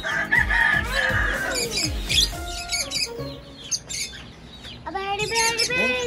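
Pet lovebirds and cockatiels chirping and calling. Quick high chirps throughout, with a longer, pitched call near the end.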